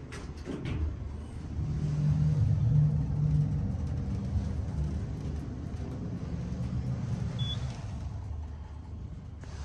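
Schindler hydraulic elevator running: after a few knocks as the car doors shut, a loud low hum and rumble from the hydraulic drive builds about a second and a half in and runs steadily while the car travels, easing off near the end.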